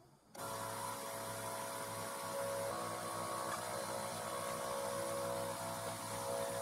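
Portable air compressor running with a steady hum while compressed air hisses from the hose nozzle pushed under a deer's hide, inflating it to separate the hide from the carcass. The sound starts suddenly just after the beginning, with a few held tones that shift in pitch now and then.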